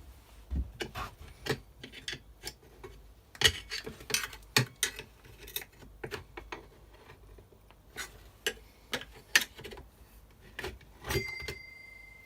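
Irregular metallic clicks, taps and knocks of hand tools working the clutch housing of a Stihl FS240 brush cutter apart from its clutch drum. About eleven seconds in, a sharp metal strike leaves a clear ring that fades over a couple of seconds.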